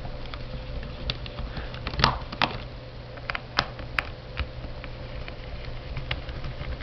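Small screwdriver backing screws out of a laptop's plastic bottom case: scattered light clicks and scrapes, with a few sharper clicks around two and four seconds in, over a steady low hum.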